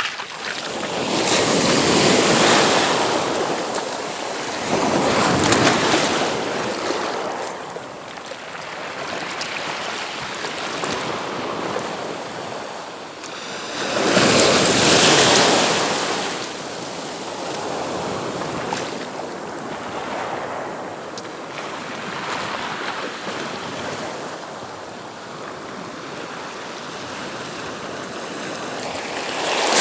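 Sea waves breaking on the beach, the surf swelling and crashing every few seconds, loudest about fifteen seconds in and again at the very end, over a steady wash of surf.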